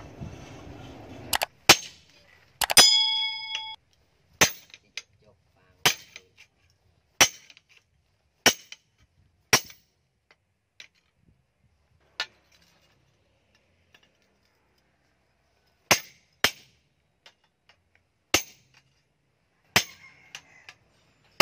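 Hand hammer striking a steel spade blade held in tongs on a steel post anvil: single sharp metallic blows, roughly one every second or so, with a pause in the middle. One early blow rings on with a clear metallic ring for about a second.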